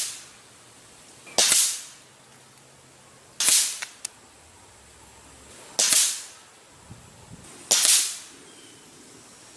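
Five sharp cracks about two seconds apart, each fading over about half a second: a .25-calibre Sumatra carbine PCP air rifle firing a five-shot group at 102 yards, heard from beside the paper targets on their cardboard backer as the pellets strike.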